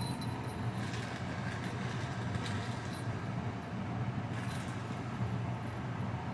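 Steady low hum, with faint light tinkling and a few soft clicks now and then.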